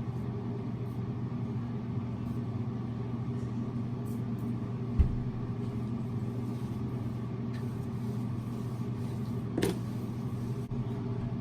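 A steady low hum, with a dull thump about five seconds in and a sharper knock near ten seconds.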